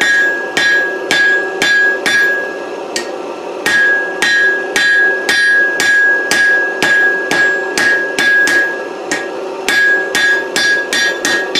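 Hand hammer striking a hot 4140 steel bar on the anvil, about two blows a second, each leaving a bright high ring, with a short pause about three seconds in. The smith is forging the four flat sides of a round punch's taper square and smooth.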